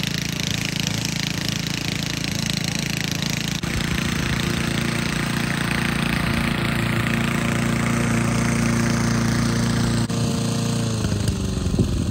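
Old gas walk-behind rotary lawn mower's small engine running steadily. Its pitch sags slightly near the end as the mower is pushed across the lawn.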